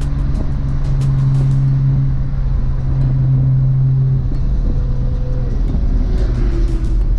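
Nissan GT-R R35's 4.1-litre stroked VR38 twin-turbo V6 running through a 4-inch stainless ETS exhaust while driving, holding a steady engine tone, then easing off about four seconds in.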